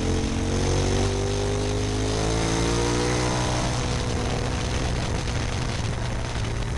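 KTM 990 Super Duke's V-twin engine running under way, its pitch rising over the first few seconds and then holding, with steady wind rush over it.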